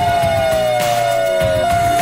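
Siren wailing with its pitch falling slowly, then switching to a two-tone hi-lo alternation about a second and a half in, over background music with a steady beat.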